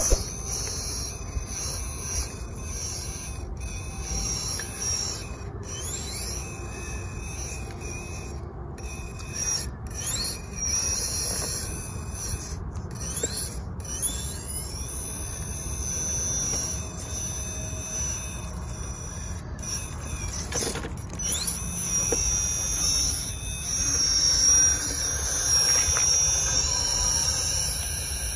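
Electric drive motor and gearbox of an RC scale trial truck whining as it crawls over the course, the high-pitched whine rising and falling in pitch again and again as the throttle changes.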